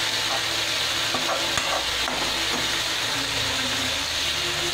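Chopped onion, green chilli and tomato sizzling steadily in hot mustard oil in a steel wok, with a spatula stirring and scraping through the tadka.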